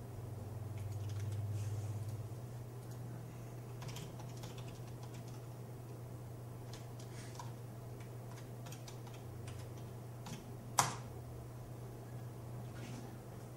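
Typing on a computer keyboard: scattered key clicks over a steady low hum, with one louder click near the end.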